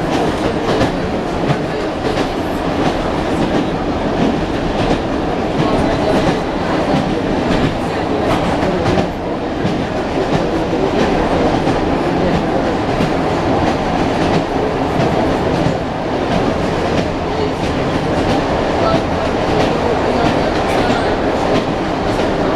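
Wheels of an ED9M electric multiple unit knocking over the rail joints, heard from inside the carriage over the steady rumble of the train running.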